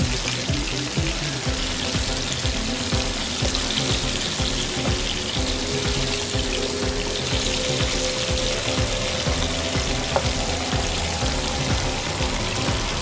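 Tilapia fillets sizzling steadily as they shallow-fry in a few tablespoons of hot oil in a pan.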